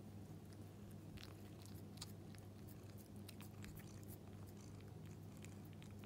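Faint, scattered small clicks and mouth noises of a British Shorthair cat nibbling and mouthing at fingers, over a low steady hum.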